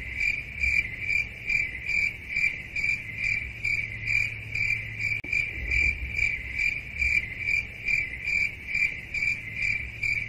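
Cricket chirping in a steady, even rhythm of about three chirps a second, over a faint low hum.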